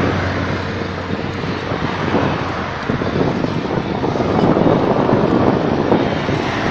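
Strong wind rushing over the phone's microphone while cycling, a steady loud noise that swells a little in the second half.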